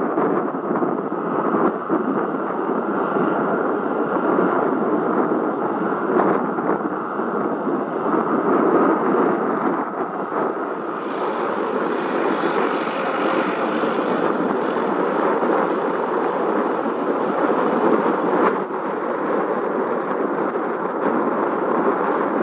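Airplane engines running steadily and loudly. About ten seconds in, a higher hiss joins the sound and stays.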